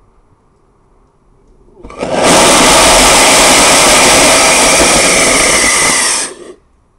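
Small paraffin-fuelled hybrid rocket motor firing: a loud, steady rushing blast of exhaust that starts about two seconds in, holds for about four seconds, then cuts off.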